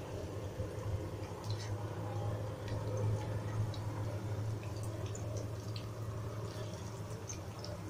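Kachori patties shallow-frying in oil in a kadhai: a soft sizzle with scattered small pops and crackles, over a steady low hum.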